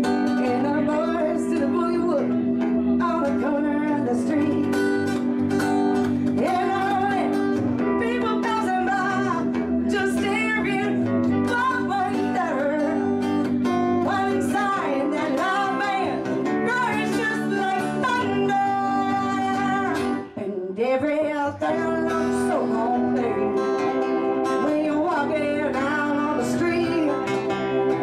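Live band music: a woman singing over a strummed acoustic guitar, with a held organ chord from a Korg CX-3 underneath. The band drops out briefly for a moment about twenty seconds in, then carries on.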